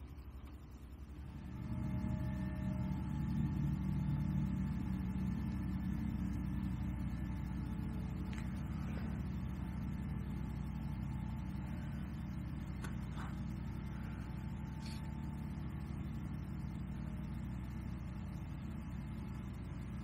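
Steady low rumble of a motor vehicle's engine, building over the first couple of seconds and then holding, with a few faint ticks now and then.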